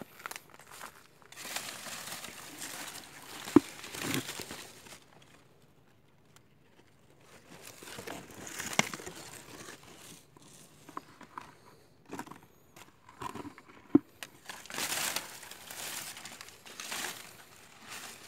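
Footsteps crunching over dry leaf litter and loose stones, with leaves rustling as plants are brushed aside, in three bouts. A few sharp knocks or snaps stand out, the loudest a little over three seconds in and again about fourteen seconds in.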